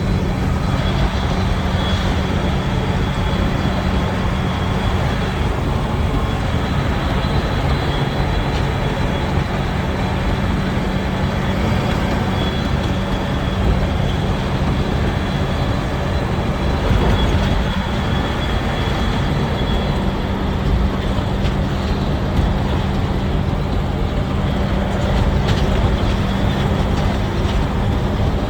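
An engine being test-run, running steadily at constant speed with an even low hum and a faint high whine above it.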